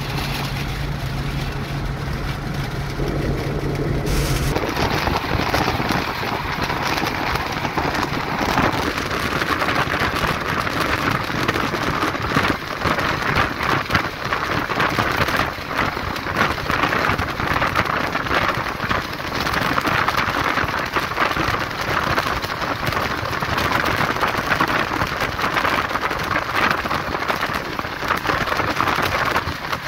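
Steady wind and road noise of a car driving at highway speed, heard from inside the car. A low engine hum is audible at first; about four seconds in, the rushing noise grows louder and stays even.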